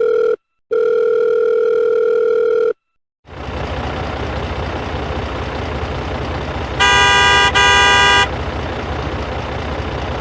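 A long steady electronic tone that cuts out briefly and sounds again for about two seconds, then a vehicle engine starts running steadily, with two quick honks of a horn about seven seconds in.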